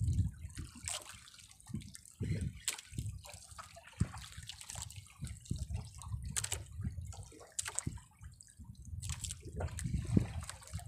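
Sea water lapping and sloshing against the hull of a small outrigger boat, with irregular slaps and splashes over a low rumble.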